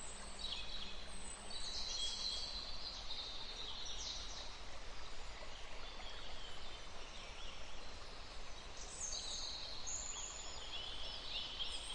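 Birds chirping in short repeated high-pitched phrases, faint over a steady background hiss.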